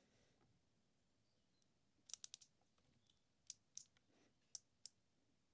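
Digital micrometer's ratchet thimble clicking as the spindle closes on a milled block to take a reading: a quick run of about four clicks about two seconds in, then four more single clicks spaced over the next few seconds.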